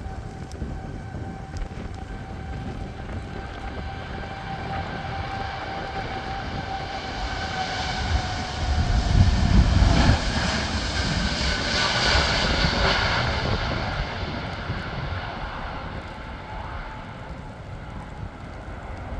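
Air Canada Boeing 787 jet engines at take-off power as the airliner rolls down the runway and climbs away. A steady whine slowly falls in pitch as it passes. The sound is loudest about ten seconds in, then fades.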